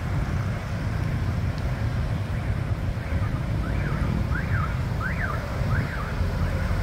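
Street traffic, mostly motorbikes, gives a steady low rumble. From about halfway through, a high chirp sweeps up and down about six times in quick succession, like an alarm warbling.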